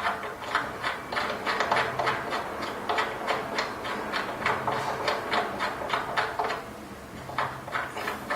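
Quick run of sharp metallic clicks and taps from hand tools working on an exercise bike's crank and belt assembly, about four to six a second, thinning out near the end.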